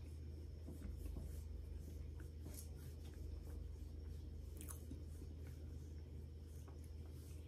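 Faint chewing of a mouthful of Argo cornstarch, with a few soft, scattered crunches over a steady low hum.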